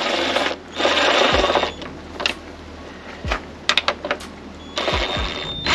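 Cordless power driver (screw gun) spinning fasteners into an outboard's lower cowling, in three short runs: two in the first two seconds and one near the end, with a few light clicks between. The screws are only being run in, not tightened.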